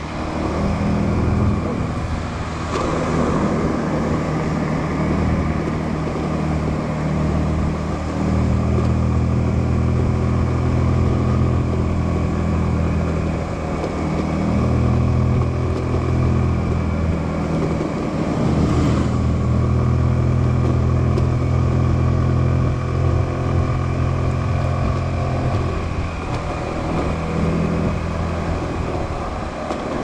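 Small motorbike engine running under way, its note shifting up and down several times through the ride.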